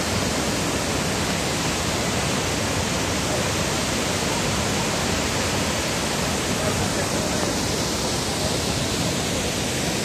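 Tall waterfall plunging onto rocks: a steady, unbroken rush of falling water.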